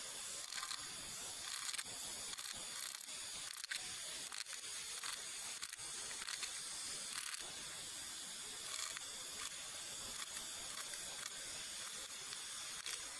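Corded electric drill running steadily while boring into wooden boat planking, heard as a thin, faint, even whir with a few light clicks.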